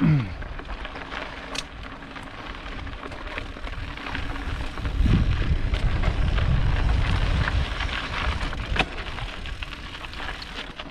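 Mountain bike rolling over a rough, rocky trail: tyres crunching over gravel and loose rock with small clicks and rattles. A low rumble of wind on the microphone grows stronger from about five seconds in for a few seconds.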